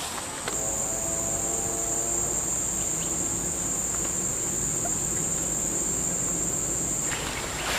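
Insects buzzing in one steady, high-pitched drone that starts about half a second in and cuts off abruptly near the end.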